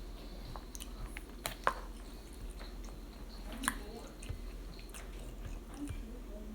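A person eating noodles close to the microphone: soft slurps and chewing, with scattered small clicks and wet mouth sounds, the sharpest about one and a half seconds in and again near the middle.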